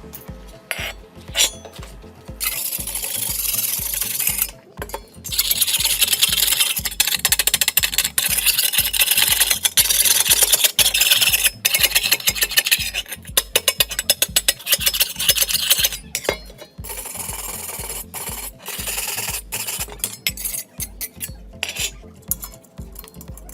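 Rusty steel being rubbed down by hand in rapid, rasping strokes. The strokes run loudest from a couple of seconds in until about two-thirds through, then go lighter and sparser. A steady music bed plays underneath.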